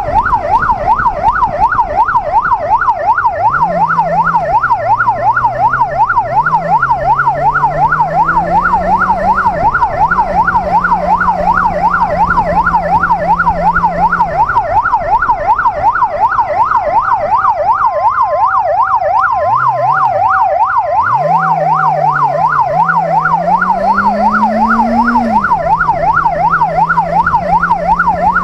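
Police motorcycle's electronic siren in a fast, continuous yelp, over the Benelli QJ BJ600J-A's inline-four engine, whose note rises and falls with the throttle and dips briefly about two-thirds of the way through.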